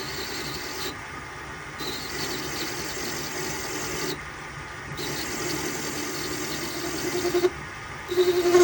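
Workshop machine running steadily, with a metal workpiece worked against it in several passes of one to two seconds, each adding a grinding tone; the passes near the end are louder. This is likely the last end of a scrap-metal tool height gauge being shaped.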